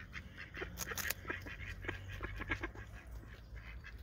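A nutria chewing a piece of bread held in its forepaws: a run of irregular wet crunches and clicks, over a low steady rumble.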